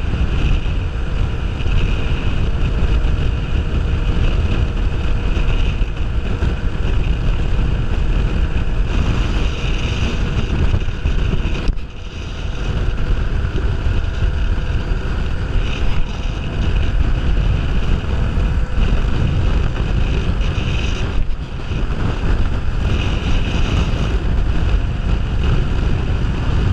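Heavy wind rush on a helmet-mounted camera's microphone at road speed, over the steady running of a Kawasaki Ninja 500R's parallel-twin engine. The level dips briefly twice, about twelve and twenty-one seconds in.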